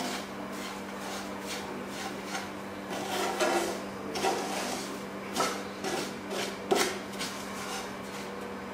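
Wooden spatula stirring and scraping semolina roasting in ghee in a nonstick frying pan, in irregular strokes, over a steady low hum.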